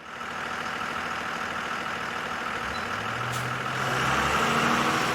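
School bus engine running steadily, with a deeper hum coming in about three seconds in as it grows louder.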